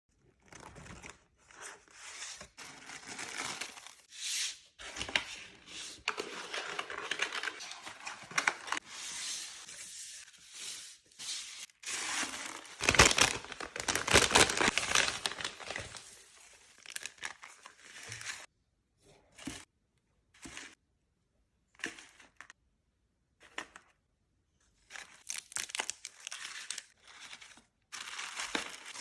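Packaging material being handled: crinkling and tearing sounds in uneven spells, loudest about halfway through, then a stretch of short separate rustles with silent gaps between them, and more crinkling near the end.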